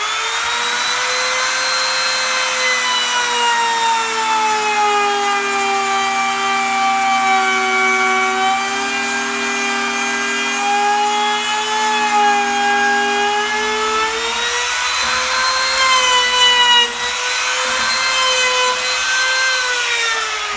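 Compact trim router running at high speed, its small bit cutting slowly into a wooden leg. The motor's whine sags a little in pitch under load in the middle of the cut, rises again, and starts to wind down at the very end.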